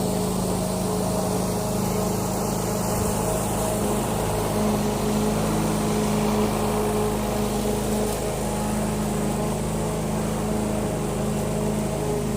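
Push lawn mower's engine running steadily, its pitch shifting slightly now and then.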